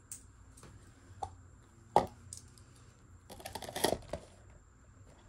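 Small clicks and taps of a metal watch bracelet being handled and closed with its fold-over clasp. There is a sharp click about two seconds in, then a short cluster of clicks and rustling a little later.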